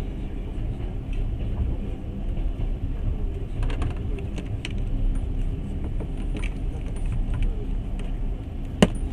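A passenger train running on rails, heard from inside the carriage: a steady low rumble with scattered metallic clicks and rattles, and one sharp click near the end.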